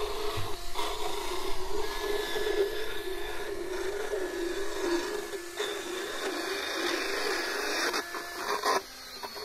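Motorized equine dental float grinding down a horse's teeth, a steady grinding whose pitch wavers slightly as it works. It stops abruptly about nine seconds in. This is the float taking down the sharp wear points on the teeth.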